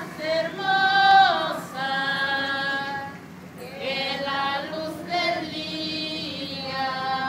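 A group of procession singers, mostly women's voices, singing a hymn together in long, held notes.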